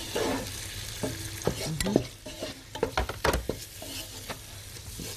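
Meat frying in oil in a pot with spices, sizzling steadily, while a spoon stirs it and knocks against the pot several times at irregular intervals.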